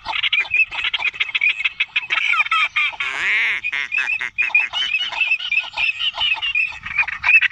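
A flock of waterfowl calling overhead: a dense, continuous chorus of short, repeated honking calls. One louder, drawn-out wavering call stands out about three seconds in.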